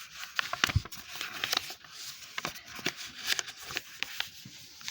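A sheet of paper being handled and folded, with irregular crisp rustles and creasing sounds.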